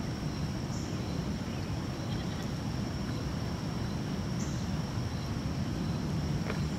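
Steady outdoor ambience at a flooded street: a constant low rumble with a thin, unbroken high-pitched drone over it.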